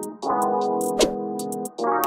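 Intro music: sustained synthesizer or keyboard chords, with a new chord coming in about every one and a half seconds, over crisp high percussion ticks.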